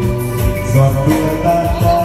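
Karaoke backing music playing, with a man singing over it through a handheld microphone.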